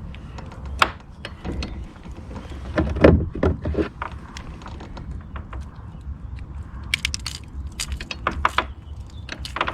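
Irregular clicks and knocks of fishing gear being handled aboard a kayak, a cluster of them loudest about three seconds in and more near the end, over a steady low rumble.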